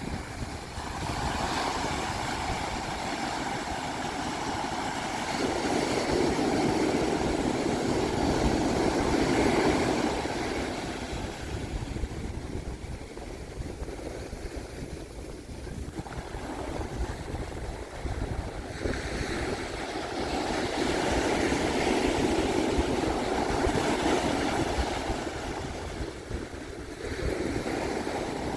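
Pacific Ocean waves breaking and washing up a sandy beach: two long surges that swell and fade, with a quieter lull between them and another wave coming in near the end, over a steady low rumble of wind.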